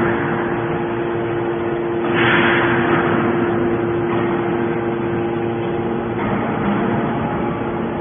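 Hydraulic scrap-metal baler running: a steady hum from its motor-driven hydraulic pump, with a hissing surge about two seconds in that slowly fades.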